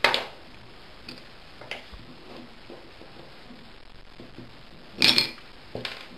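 Small metal parts and tools being handled on a bench while the float pivot pin is taken out of a carburettor: a sharp click at the start, a few light ticks, and a louder short clatter about five seconds in.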